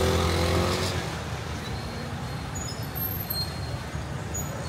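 A motor vehicle's engine running close by for about the first second, then a steady low rumble of street traffic.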